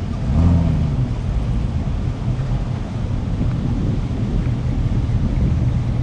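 Wind buffeting the microphone over a low engine rumble, with a short pitched engine note about half a second in.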